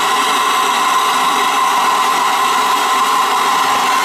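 Hose-fed soldering torch burning steadily, a loud rushing hiss with a steady whistling tone in it, as its flame heats a copper pipe joint at a ball valve for sweat soldering.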